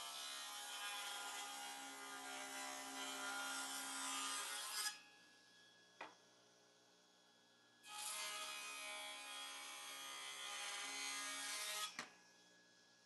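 Table saw with a thin-kerf 7¼-inch, 24-tooth Freud Diablo circular saw blade making two cuts through the end of a board, each about four to five seconds long. A sharp knock follows the end of each cut.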